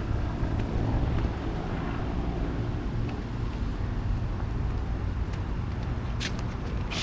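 Wind buffeting the microphone as a steady low rumble, with a short sharp hiss about six seconds in.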